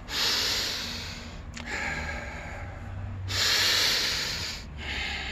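A man taking deep, audible breaths through the nose: two long, loud breaths of about a second and a half each, one at the start and one past the middle, with softer breathing between.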